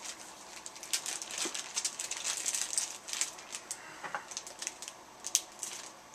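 Packaging being handled and unwrapped: a busy run of crinkling and rustling with many small clicks and ticks.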